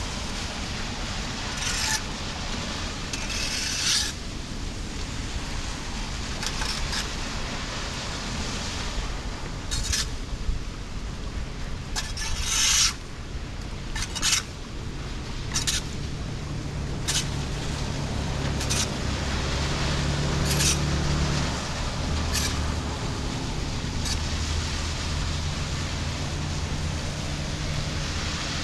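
Steady rain falling on a wet concrete road, with a dozen or so sharp taps scattered through it. From about halfway a low engine hum from a vehicle comes in and holds to the end.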